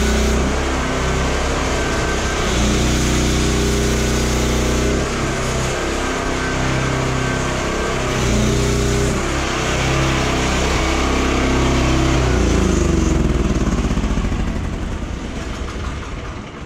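Pressure washer running while foam is sprayed through a foam lance onto a truck. The engine-like drone sits under a steady hiss from the spray. In the last few seconds the drone's pitch falls and the sound fades as spraying stops.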